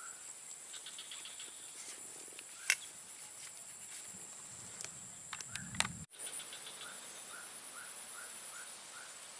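Steady high-pitched drone of insects in swamp grass, with a few sharp clicks and rustles from handling the rod. Later a series of short rising chirps comes about twice a second.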